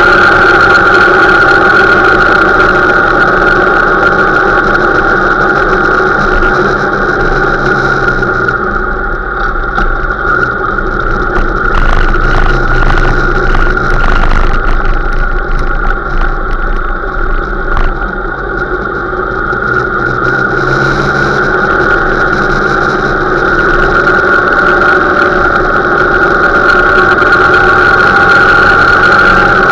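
Motorcycle engine running steadily at around 3,000 rpm while riding. It drops a little in the middle, then picks up again toward the end.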